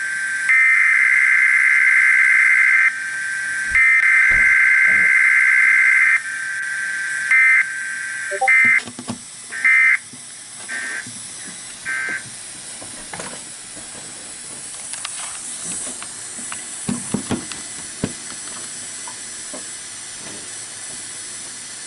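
Emergency Alert System SAME data tones for a Required Weekly Test: long, raspy digital header bursts about two seconds each, repeated with short gaps, then a run of five short bursts, the end-of-message codes. After these a faint hiss remains, with a few clicks.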